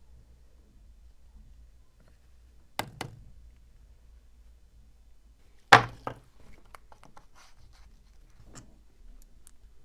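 Hard objects knocking in a workshop: two quick knocks about three seconds in, then one loud knock just before six seconds followed by a smaller one and a scatter of light clicks.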